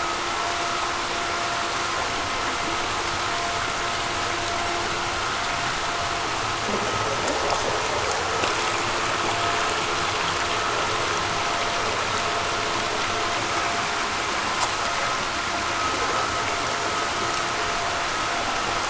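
Steady rush of water in an eel-farm tank over a faint steady machine hum, with a few short splashes as the eels churn around the feed.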